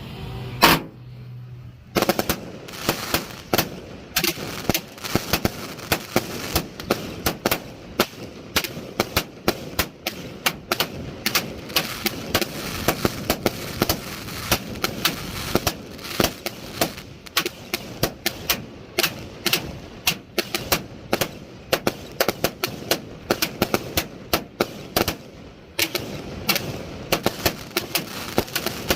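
A 100-shot fireworks cake firing: one shot about a second in, then a rapid, irregular run of sharp bangs, several a second, with a brief thinning near the end.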